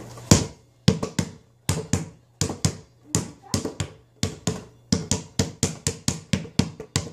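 Basketball being dribbled on the floor: sharp bounces, spaced out at first, then quickening to about five a second in the second half.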